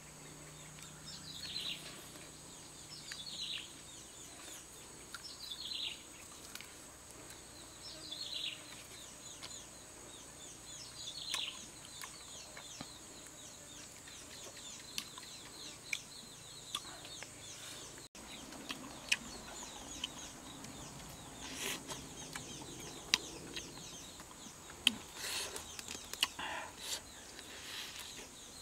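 A wild bird repeats a short, high, downward-sweeping call about every two seconds over a steady high insect drone. In the second half the bird falls quiet and sharp crackles and snaps take over, as crisp roasted chicken skin and meat are bitten and torn.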